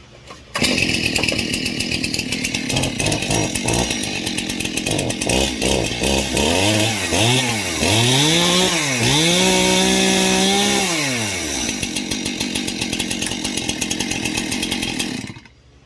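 Two-stroke chainsaw starting, catching suddenly about half a second in and idling. It is revved up and down several times in quick succession, held at high revs for a couple of seconds, then dropped back to idle and shut off near the end.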